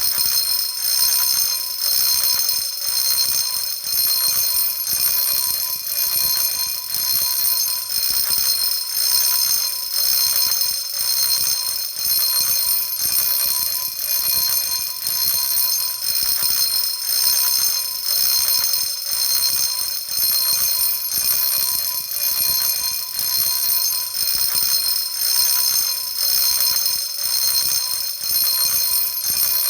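Electric fire alarm bell made by 仙暉工業 (Xianhui Industrial), ringing loudly in its intermittent pattern: a rapid metallic striking that swells and eases in regular pulses.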